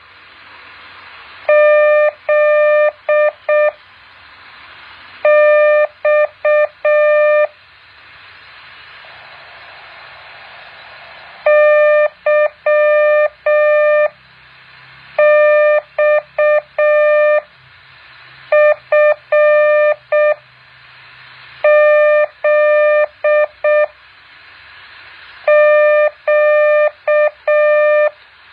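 Morse code practice tone, a steady beep of about 600 Hz keyed in dots and dashes, sent as seven short code groups each about two seconds long. A hiss fills the pauses between groups.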